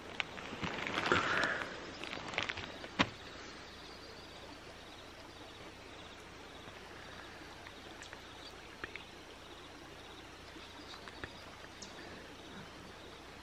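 Rustling and a few sharp clicks in the first three seconds as someone shifts on nylon sleeping bags and pads, then quiet outdoor ambience with faint scattered ticks.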